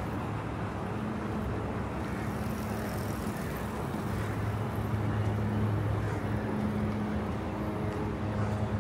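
Road traffic noise from cars passing, with a steady low hum underneath that grows a little louder about halfway through.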